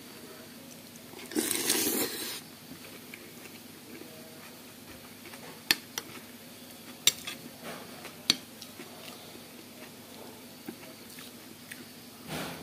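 Metal cutlery clinking against a dish a few times while eating curry noodles, with a noisy slurp of noodles lasting about a second, starting about a second and a half in.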